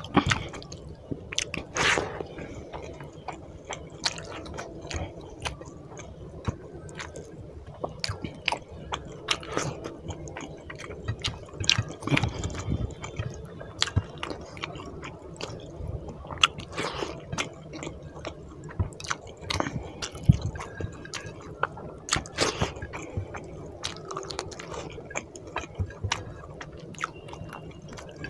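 Close-up eating sounds: wet chewing and squishing of rice mixed by hand with fish curry gravy, with many short, irregular wet clicks.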